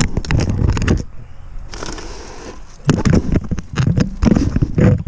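Footsteps crunching through deep snow, a few heavy steps a second, with a pause and a hiss about two seconds in.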